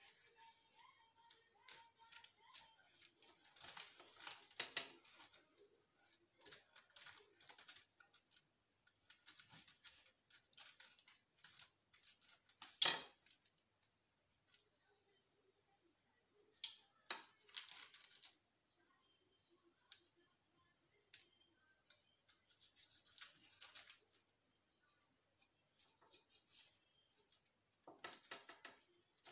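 Faint rustling of parchment paper in short scattered bursts as soft biscuit dough is cut and moved on it with a knife, with one sharp tap a little under halfway through.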